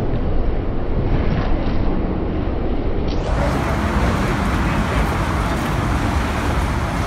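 Steady road-traffic roar, heavy in the low end, turning brighter about three seconds in.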